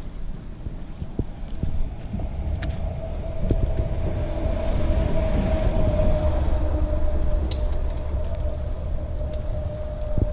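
A steady engine hum, one unchanging tone over a low rumble, growing louder toward the middle and easing off again, with wind noise and a few light clicks.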